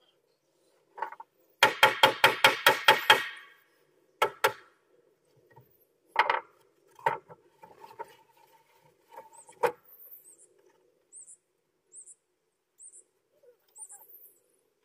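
Hammer blows on deck lumber: a quick run of about eight strikes, roughly five a second, followed by a few single, spaced knocks on wood.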